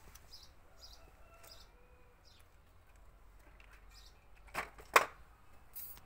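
Two sharp knocks about half a second apart, the second much louder.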